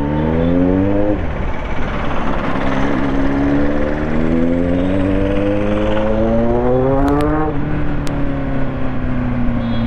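Kawasaki Z900 inline-four engine accelerating. The revs climb for about a second and drop at a gear change, then climb steadily for several seconds before easing off and falling as the bike slows. Wind rushes over the mic throughout.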